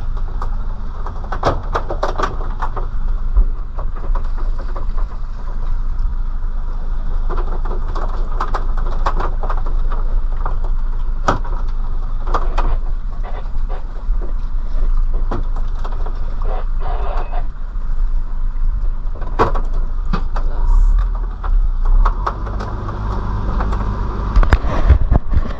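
A fishing boat's engine running with a steady low hum, under frequent sharp knocks and clatter as tuna and a multi-hook lure line are hauled over the gunwale and unhooked.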